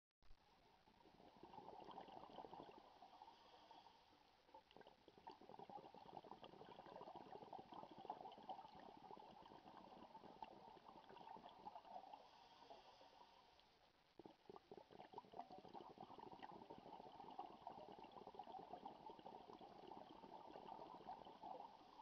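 Faint underwater bubbling and crackling from a scuba diver's exhaled breath. It comes in long swells that drop away briefly about four seconds in and again about fourteen seconds in.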